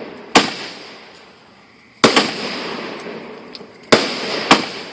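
Fireworks going off: five sharp bangs, two of them in quick succession about two seconds in, each followed by a hiss that fades over about a second.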